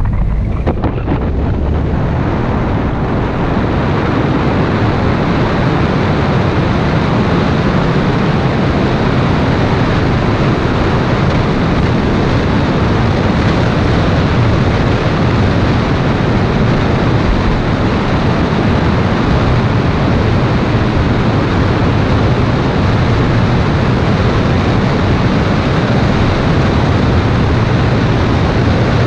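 Wind rushing over the microphone of a camera mounted outside a moving Toyota MR2 mk2, with the car's road and engine rumble underneath. The rush fills in about a second in and then holds steady.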